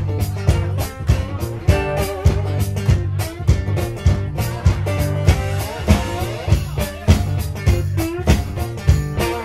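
Live instrumental blues rock on a double-neck bass and electric guitar, a heavy bass line under the guitar riff, driven by a steady drum beat.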